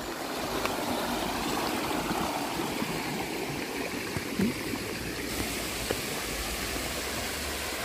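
Small stream running over rocks and little cascades: a steady sound of flowing water.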